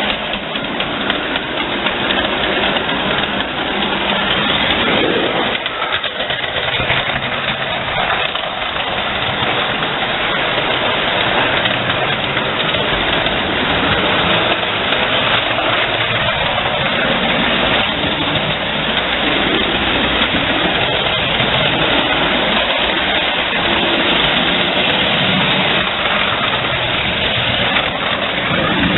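Standard gauge model train running on its layout: a steady noise of motor and wheels on the track that goes on without a break.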